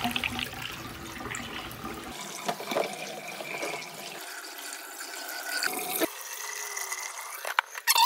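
Soapy wash water draining out of a Giantex portable washing machine through its drain hose, gushing and splashing into a sink basin and down the drain.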